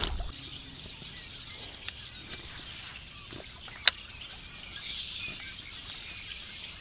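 Outdoor birds chirping steadily in the background. At the start, a small splash as a released bass drops back into the pond, and about four seconds in, a single sharp click.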